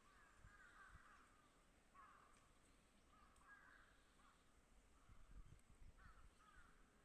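Faint crows cawing in the distance: several harsh, hoarse calls repeated every second or two.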